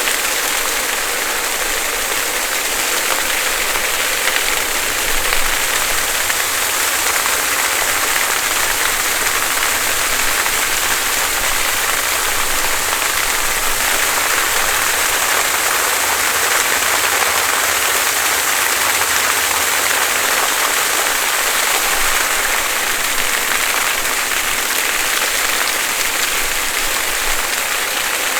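Water fountain splashing: a steady, even rush of falling water that keeps up without a break or change.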